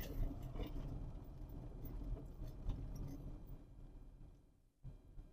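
Low road rumble inside a moving car's cabin from tyres and engine, fading away almost to silence near the end.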